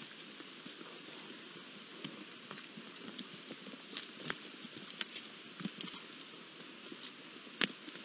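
Wild boars moving and nosing about on stony ground around a water trough: irregular small clicks and taps over a steady hiss, the sharpest click near the end.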